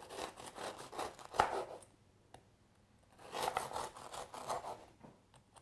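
Serrated knife sawing back and forth through a baked pistachio biscotti log on a wooden cutting board, in quick rasping strokes. Two bouts of cutting, about two seconds each, with a short pause between.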